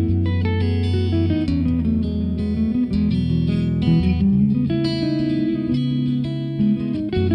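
Background music led by guitar, with many plucked notes over a steady low bass line.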